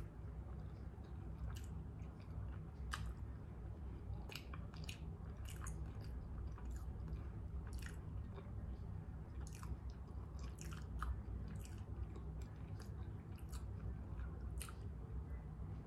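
A person chewing mouthfuls of a chili-topped hot dog and bun, with irregular wet mouth clicks, over a steady low hum.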